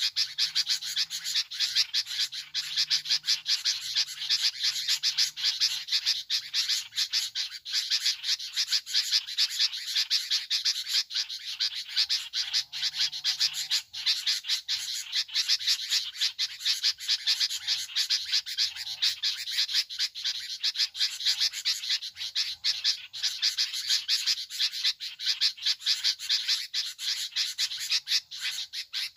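An unbroken, dense chorus of calling frogs, a fast rasping pulse that keeps up without a pause.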